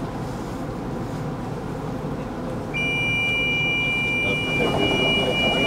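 Tram interior rumble, then about three seconds in a steady two-tone electronic beep starts and holds: a tram's door-closing warning signal.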